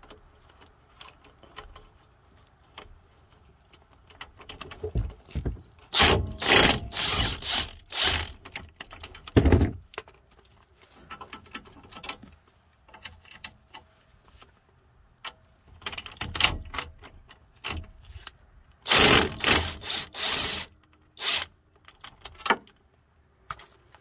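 Cordless impact wrench hammering out the two 17 mm bolts that hold a brake caliper bracket. It runs in two bursts of about two seconds each, roughly a dozen seconds apart, with short metal clicks and clinks between them.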